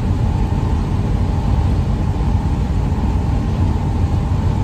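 Steady road and engine noise inside a moving van's cabin: a low, even rumble with a faint steady hum above it.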